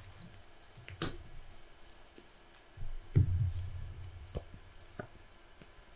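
Clicks and taps of trading cards and game pieces handled on a tabletop: a sharp click about a second in, a duller thump around three seconds in, then a few lighter ticks.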